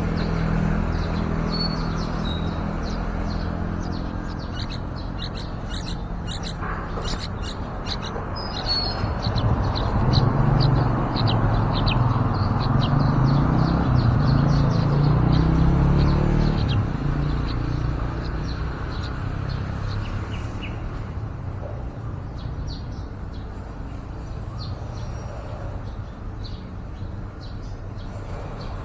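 Birds chirping in many short, quick high calls, thickest in the first third. Under them a low rumble swells about ten seconds in and fades away by about seventeen seconds.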